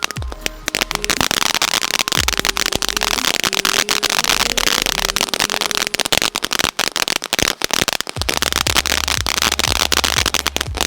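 Ice Cream Cone fountain firework burning with dense, rapid crackling, over background music with a bass beat.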